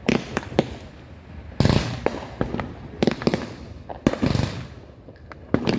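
Fireworks going off: about five loud, sharp bangs, each trailing off in a rumble, roughly every second or so, with smaller cracks between them.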